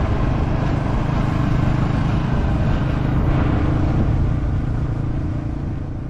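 Motorcycle engine running steadily at road speed, with wind rushing over the microphone. It starts to fade near the end.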